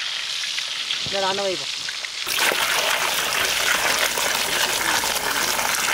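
Faint frying hiss with a brief voice, then about two seconds in a sudden switch to liquid pouring in a thick stream into a large aluminium pot, a steady gushing splash.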